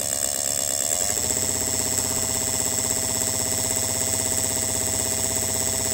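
Distributor test stand's electric drive spinning a GM TBI distributor, with the sparks firing at the test gaps. The pitch rises about a second in as the RPM is turned up, then the machine runs steadily with a thin high whine.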